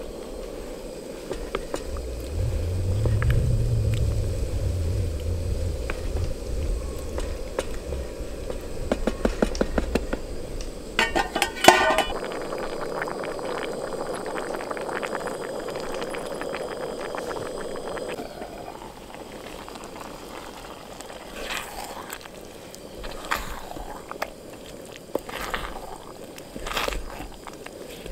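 Food simmering in a camping pot with a steady bubbling hiss. Midway there is a quick run of clicks and a metallic rattle, like a utensil against the pot, and a low wind rumble for the first several seconds.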